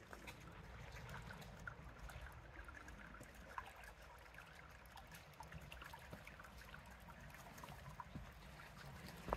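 Faint trickling of a shallow brook running over rocks, with a couple of soft knocks.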